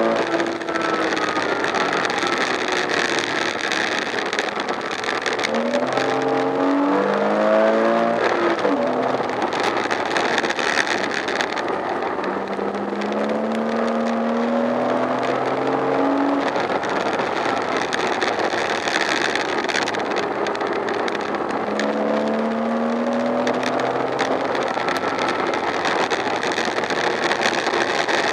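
Porsche Boxster S (987) flat-six engine heard from inside the cabin, accelerating. Its note rises in pitch three times over a steady rush of road and wind noise.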